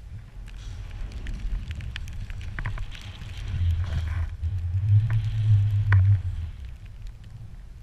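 Skis running through deep powder snow, with wind buffeting the action-camera microphone as a low rumble that swells loudest in the second half, along with a hiss of spraying snow and a few short clicks.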